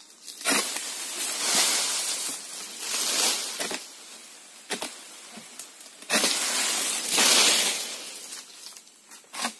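Oil palm fronds rustling and scraping as an egrek, a long pole-mounted harvesting sickle, is worked in the palm crown. The noise comes in two long swells, one about half a second in and one about six seconds in, with a few sharp clicks between them.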